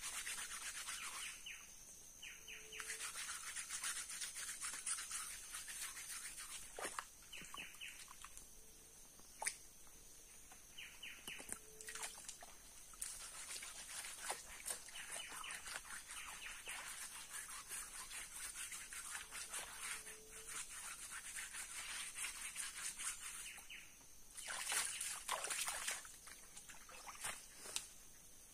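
Water splashing and sloshing in spells as a flat stone is scrubbed and rinsed by hand in the shallows of a river, with gaps where the washing pauses.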